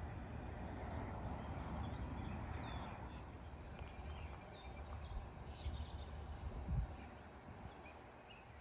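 Quiet outdoor ambience: a steady low rumble with scattered faint bird chirps.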